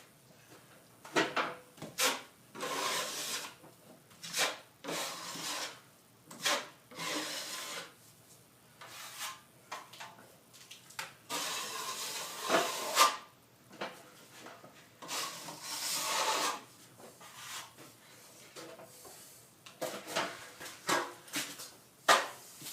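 Plastering trowel scraping and smoothing wet plaster over screw holes in a plasterboard ceiling: irregular strokes, some short sharp scrapes and taps, some longer swipes of about a second.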